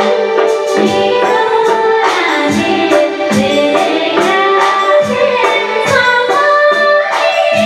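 A woman singing a Nepali song over instrumental backing with a regular drum beat.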